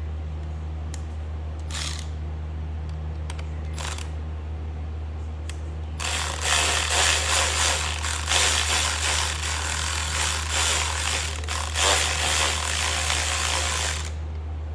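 Mechanical tool work on the motorcycle's fasteners: a few light clicks, then about eight seconds of loud, uneven ratcheting and scraping from about six seconds in.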